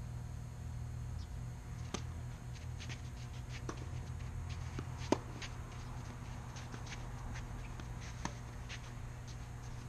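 Tennis rally: a few sharp racket-on-ball hits, the loudest about five seconds in, with scattered light ticks and scuffs of feet and ball on the court, over a steady low hum.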